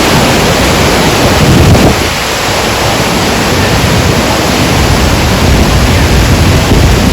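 The Rhine Falls' water rushing loudly and steadily, with wind rumbling on the microphone.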